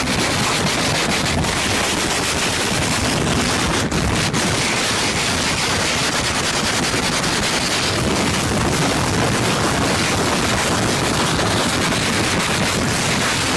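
A loud, steady rushing noise with a fine crackle through it.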